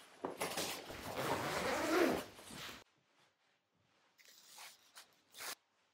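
Clothing rustling as a jacket is swung on and pulled into place: one long rustle lasting about two and a half seconds, then a few short rustles near the end.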